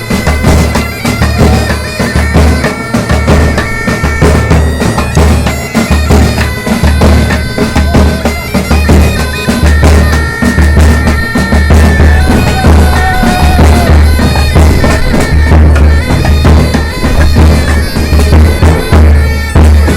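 Loud music with a heavy, evenly pulsing bass beat under a held, high melody line.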